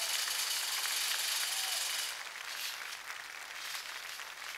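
A steady hiss of steam or smoke venting from the Man Engine giant mechanical puppet, cutting off about two seconds in. Scattered clapping and cheering from a large crowd follow.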